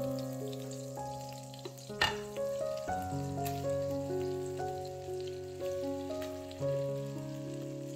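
Butter and olive oil sizzling in a frying pan as grated zucchini-and-vegetable batter is spooned into it, with a sharp knock about two seconds in. Background music plays over it.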